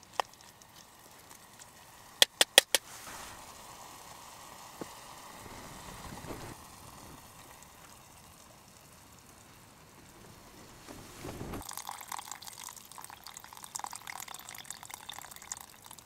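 Liquid poured from a plastic bottle into a pot of cooking vegetables on a Trangia camping stove, splashing and trickling in, with the loudest pouring in the last few seconds. A few seconds in there are four quick, sharp taps.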